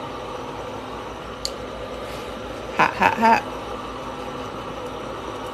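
Steady hum of an electric food steamer running. A light click comes about a second and a half in, and a short voiced 'mm' about three seconds in.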